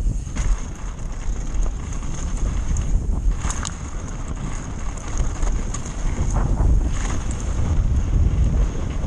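Wind buffeting the microphone of a bike-mounted camera as a mountain bike descends a dirt and gravel trail at speed, a steady rumble. Scattered sharp clicks and rattles from the bike and its tyres on the rough ground run through it.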